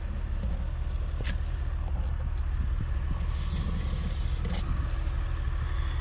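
Tractor engine running steadily with a low drone, with a few faint clicks and a brief hiss about three and a half seconds in.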